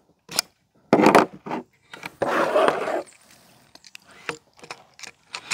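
Clicks, knocks and a scrape of a Karma SLS .22 PCP air rifle being handled at the bench as it is set over to semi-automatic mode, ending in a run of small light clicks.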